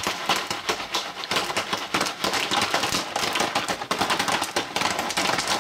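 Jiffy Pop stovetop popcorn popping fast in its foil pan: a dense, continuous run of sharp pops, many a second, with the popping in full swing.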